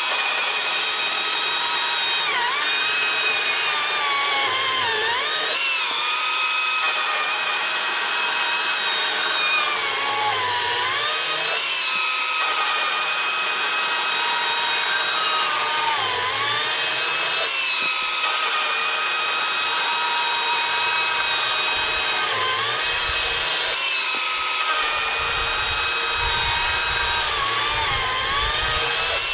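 STIHL MSA 161 T battery top-handle chainsaw, its brushless motor running with a steady high whine while it saws through a wooden beam. The pitch sags briefly every few seconds as the chain bites and the motor takes the load, then recovers. The saw stops right at the end.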